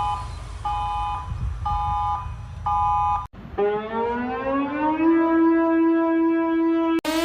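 Emergency alert alarm sounds: a chord of electronic tones beeping four times, about once a second, over a low rumbling noise, then a cut to a siren that winds up in pitch for about a second and a half and then holds steady.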